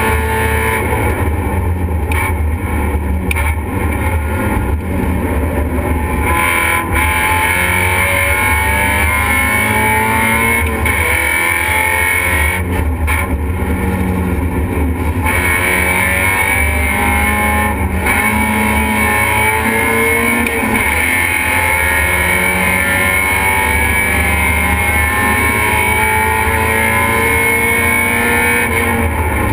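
Race car engine heard from inside the stripped cockpit at track speed, its pitch repeatedly climbing and dropping as the driver accelerates and brakes, over steady low drivetrain and road rumble.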